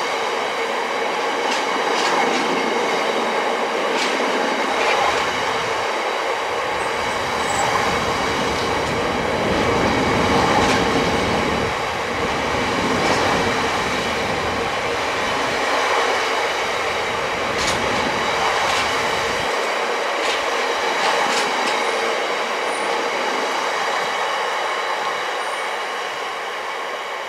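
Loaded coal hopper wagons of a freight train rolling past: a steady rumble of wheels on rail, with clicks over rail joints and thin high-pitched ringing tones above it. The sound fades as the last wagon passes near the end.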